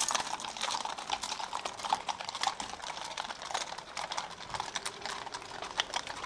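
Hooves of several horses walking on a tarmac road: many quick, overlapping, irregular clip-clops.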